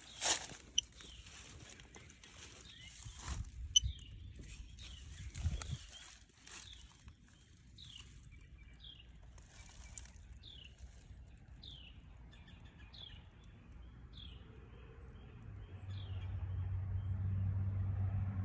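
A bird calling over and over with short downward-slurred chirps, about one a second. Near the end a steady low mechanical hum comes on and becomes the loudest sound.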